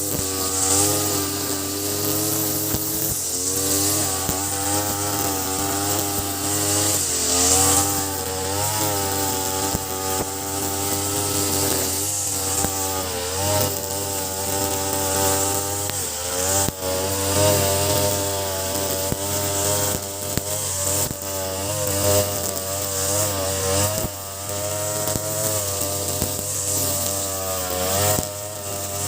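Two-stroke engine of an Ogawa BG330 33cc brush cutter, fitted with a 43cc carburetor, running at high revs while its trimmer line cuts grass. The engine pitch wavers up and down as the cutting load changes, with several brief dips in revs.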